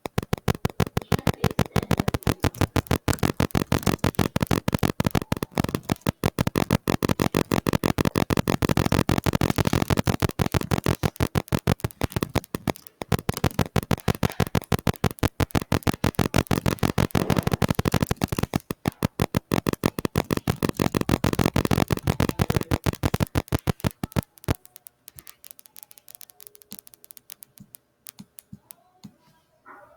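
Rapid keyboard typing clicks, many per second in a fast continuous run, breaking off about 24 seconds in into a few sparser, fainter clicks.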